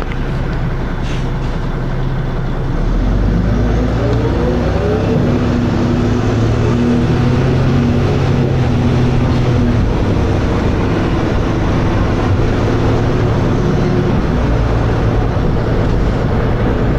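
Dennis Arrow double-decker bus engine heard from on board, running steadily, then picking up about three seconds in with its note rising for a couple of seconds as the bus accelerates, then holding a steady drone.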